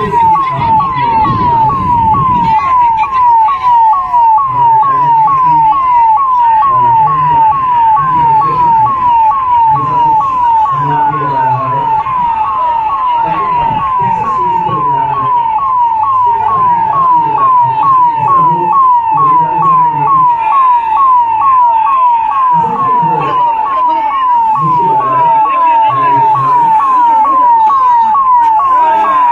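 Emergency-vehicle siren sounding continuously in a fast yelp: short falling tones about two a second, loud throughout.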